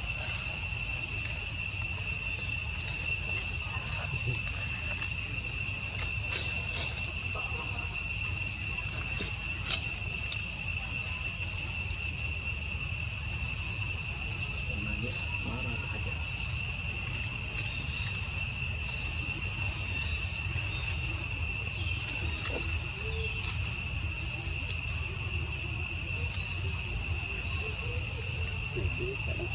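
A steady insect chorus: one unbroken high-pitched drone with no change in pitch or loudness, over a low rumble, with a few faint clicks.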